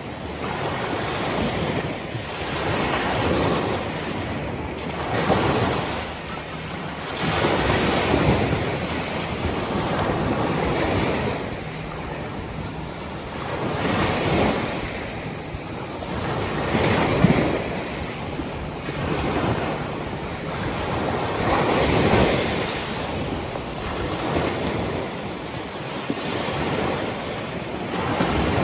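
Ocean surf breaking on a beach: one wave after another rushes in and washes out every few seconds, in a steady hiss of water.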